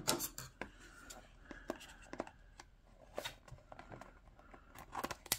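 Small cardboard product box being handled and opened by hand: scattered light clicks and rustles of card, with a sharper tap about five seconds in.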